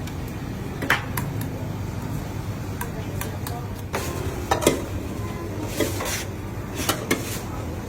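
Metal utensils and bowls clinking and knocking at a noodle stall, with several sharp clatters over a steady low rumble.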